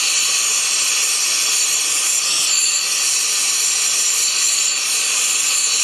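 Gas torch flame hissing steadily while heating a cast-iron gear.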